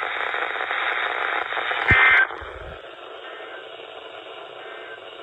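Weather radio receiver giving off steady static hiss, with a short, loud burst of tones about two seconds in, after which the hiss carries on quieter.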